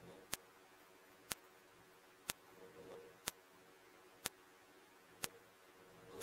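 Steady ticking: six sharp, even ticks, one about every second, over a faint hiss.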